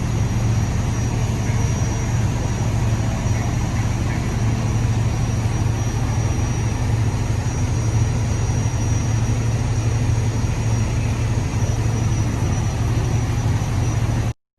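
Fire truck engine running steadily at idle: a constant low drone that cuts off suddenly near the end.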